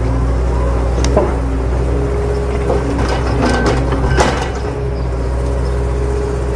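A steady engine-like drone with a low hum. Between about three and four seconds in, sand scrapes and pours from a plastic toy excavator bucket into a plastic toy dump truck's bed, with light plastic clatter.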